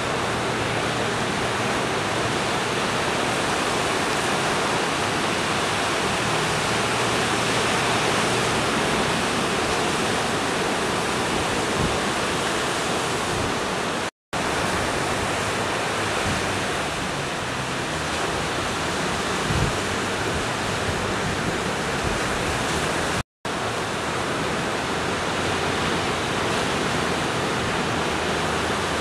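Steady roar of ocean surf breaking along the shore. It cuts to silence for an instant twice, about halfway through and again about three-quarters of the way in.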